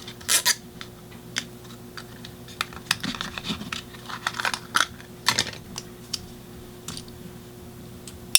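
Irregular light clicks and short rustling scrapes from handling nylon webbing and plastic strap buckles.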